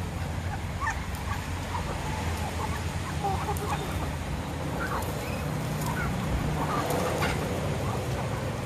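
A flock of native chickens and ducks feeding, with scattered short, soft clucks and chirps and light clicks of beaks pecking at gravel. A steady low hum runs underneath.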